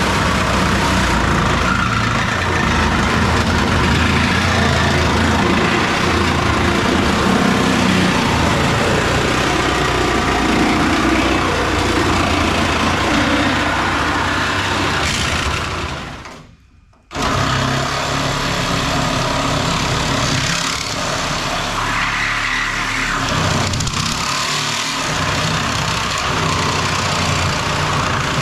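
Handheld power tool cutting through a car's rusted sheet-metal roof, a loud steady cutting noise. It breaks off for a moment just past halfway, then carries on.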